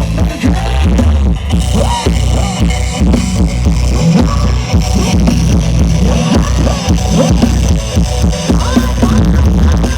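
A rot hae parade truck's outdoor sound system playing loud music with heavy bass and a wavering melody line over it.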